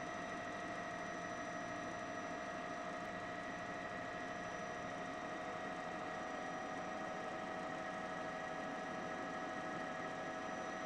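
Steady engine drone with several constant whining tones, the sound of the helicopter carrying the aerial camera.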